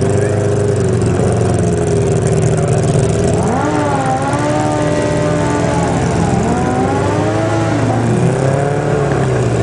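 Motorcycle engines idling at a drag strip start line, with one engine revved up and held at raised revs, dipping and rising again twice through the middle before dropping back to idle.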